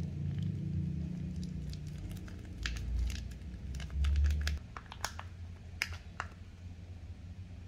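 Chilli-oil sauce sachet crinkling and crackling as it is squeezed out by hand, followed by a foil pouch being handled, with a low bump of handling noise in the middle.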